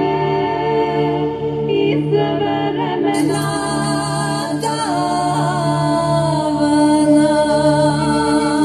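A cappella choral singing played back through a speaker fitted with a Melodavid Piccolo 28S tweeter. The treble is missing at first, with the sound dull and muffled. About three seconds in, the high end comes back abruptly as the tweeter is switched back in.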